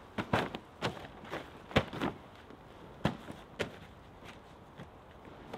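An irregular run of sharp wooden knocks and clunks, about a dozen in five seconds, the loudest near two seconds in and again at the very end, as logs and wood are handled on a woodpile.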